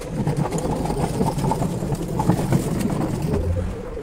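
Large steel fuel tank being moved across a concrete floor, a continuous rumbling scrape with scattered small knocks.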